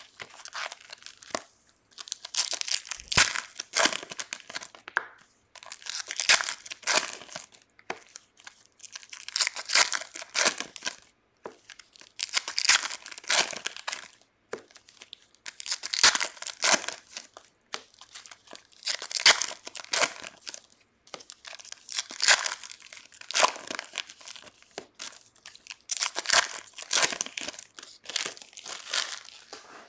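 Foil trading-card pack wrappers being torn open and crinkled, in repeated bursts of rustling every two to three seconds as packs are opened one after another.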